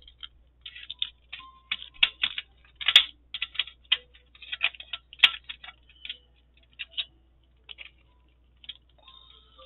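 Diamond painting drill pen picking up small teardrop drills and pressing them onto a butterfly keychain: a run of light, irregular plastic clicks and taps, with two sharper clicks about three and five seconds in.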